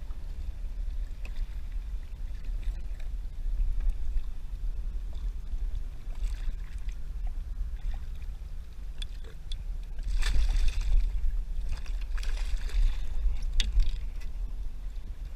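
Water splashing and sloshing against a kayak in two louder bursts, about ten and twelve seconds in, with a few sharp knocks, over a steady low rumble of wind on the microphone.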